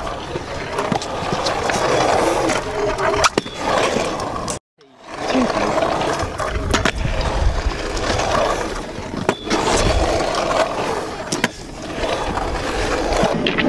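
Stunt scooter wheels rolling over concrete skatepark ramps, a continuous rumble broken by several sharp clacks of landings and deck knocks. The sound cuts out completely for about half a second around four and a half seconds in, at an edit.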